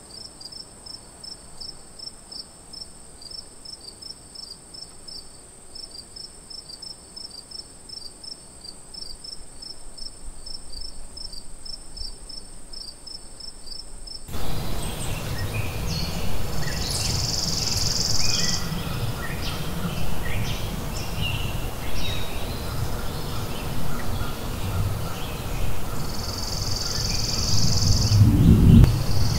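Night-time cricket chorus: a steady high trill with a fast, even pulsing chirp over it. About halfway through it gives way to a louder outdoor ambience of low wind rumble, scattered bird calls and bursts of high insect buzzing.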